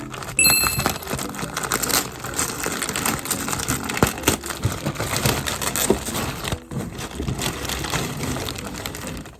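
Plastic mailer packaging crinkling and rustling in irregular crackles as a package is handled and opened.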